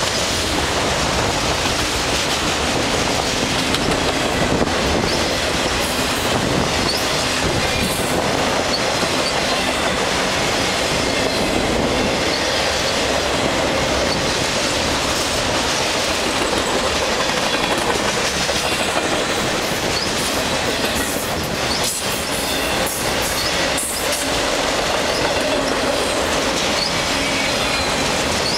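Freight train's autorack cars rolling past: steady rumble and rattle of steel wheels on the rails, with a few clacks over rail joints and faint high wheel squeal now and then.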